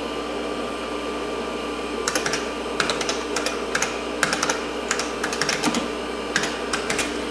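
Keystrokes on a computer keyboard typing a DOS copy command: a run of irregular clicks starting about two seconds in, over a steady machine hum.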